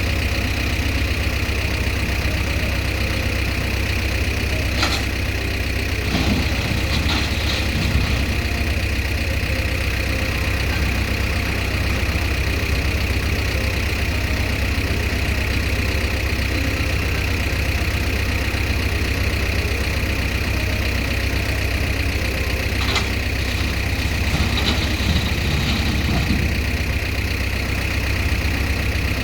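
Heavy diesel earthmoving machinery running steadily, with a steady high whine over the engine and a couple of brief knocks.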